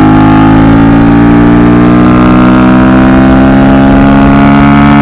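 Kawasaki Z125's 125 cc single-cylinder four-stroke engine running hard under load on track, its pitch climbing slowly and steadily as the bike accelerates through a gear. Loud, heard from on the bike.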